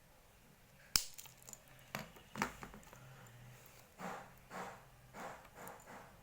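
Hands working a UTP network cable, stripping and handling its jacket and twisted wire pairs: a sharp click about a second in, a couple of snaps, then a run of short rustling crinkles about half a second apart.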